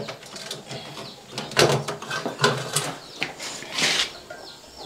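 Gas stove's ignition knob being pressed and turned, its igniter clicking several times without the burner catching, with a short hiss about four seconds in. The gas has not yet come through the newly fitted line to the burner.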